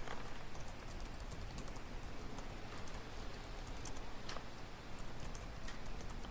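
Library ambience: a steady low room hum with small clicks and taps scattered irregularly through it.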